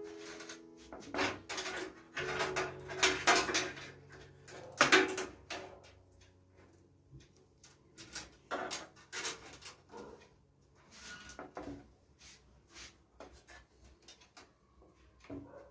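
Irregular clicks, knocks and scrapes of hard objects being handled, loudest and most frequent in the first five seconds, then sparser and quieter.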